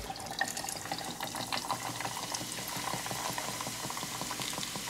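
Sprite poured from a 2-liter plastic bottle into a glass pitcher of ice and sangria mix, the soda fizzing and crackling over the ice. A steady hiss is full of small pops, densest in the first couple of seconds.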